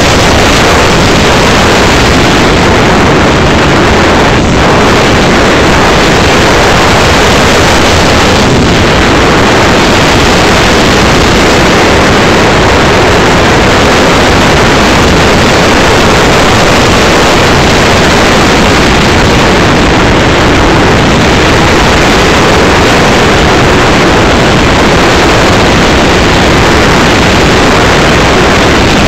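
Loud, unchanging rush of air and motor noise from a flying RC Su-25 model jet, picked up by a camera in its canopy, with no clear tone standing out of the noise.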